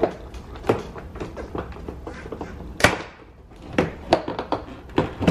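Plastic push-pin clips of a Cadillac STS inner door panel popping out of the door as the panel is pulled off by hand: a series of sharp snaps and knocks, the loudest about three seconds in.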